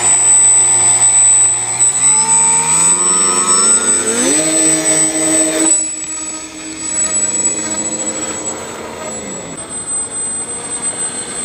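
Twin electric brushless motors of a homemade RC plane, driving pusher propellers, whining in flight: the pitch climbs as the throttle opens about two seconds in, holds, then the sound drops back and runs lower and steadier before fading near the end.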